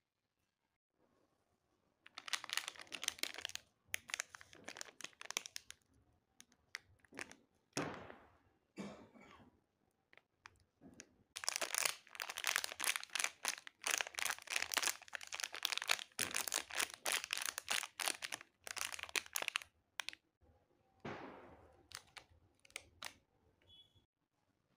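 Crinkly plastic candy wrappers being handled and squeezed. They crackle in spurts, and the longest stretch runs through the middle.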